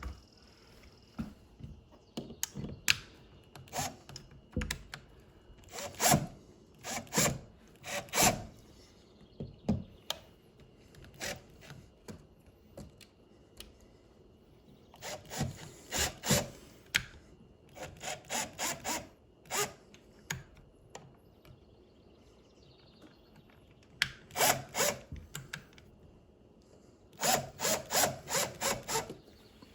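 Scraping and clicking as a wall switch and its cover plate are worked loose and straightened by hand. It comes in irregular groups of short strokes, some in quick runs, with quiet stretches between.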